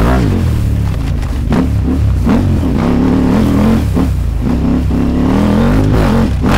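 KTM 890 Adventure R's parallel-twin engine revving hard under full throttle, its pitch rising and falling and cutting back briefly several times as the rider shifts and comes off the throttle.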